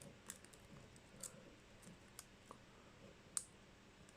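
Faint, scattered metallic clicks and light scraping of a paper clip being worked in a padlock's keyway, picking the pins, with one sharper click about three and a half seconds in.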